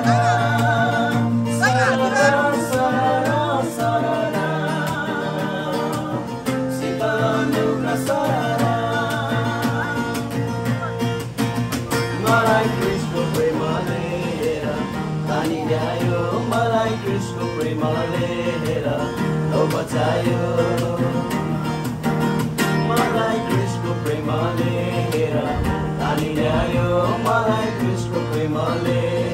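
Background music: a song with a singing voice and guitar.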